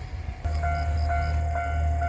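Japanese railway level-crossing alarm ringing its electronic 'kan-kan' bell, about two strokes a second, starting abruptly about half a second in over a low steady rumble. Before it, the last of a passing train's noise.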